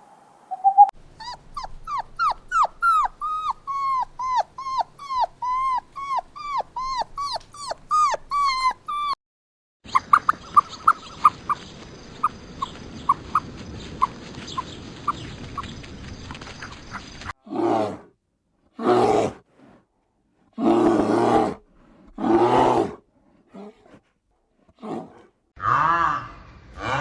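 A run of animal calls from different clips. First come quick, short calls sliding down in pitch, about two a second. Then faint quick pips over a steady high whine, then several loud calls about a second long, with pauses between them.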